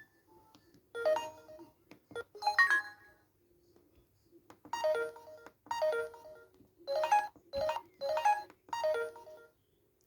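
A Samsung GT-S3600i mobile phone's ringtone playing through its loudspeaker: a melody in short separate phrases, the later ones coming about once a second.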